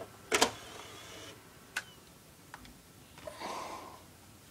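Handling noises close to the microphone: a sharp double knock about half a second in, a couple of light ticks, then a short scrape near the end.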